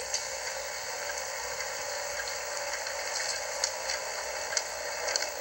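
Steady hiss with a few faint clicks, heard through a television's speaker.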